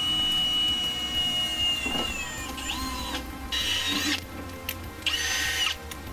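Milwaukee cordless drill/driver running in short bursts, spinning up and winding down, as it drives screws into an aluminium side skirt's mounting brackets. The two loudest runs come about three and a half and five seconds in.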